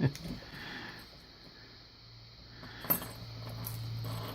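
Small metal parts of a gutted padlock clinking as they are handled, with a sharp metallic click about three seconds in, followed by a low steady hum.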